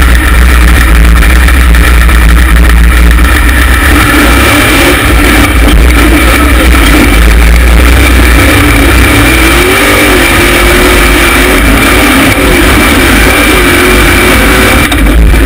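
The LS V8 engine of a rock bouncer buggy running hard under load on a hill climb, its pitch wavering up and down as the throttle works. It is very loud and the recording is pinned at full level.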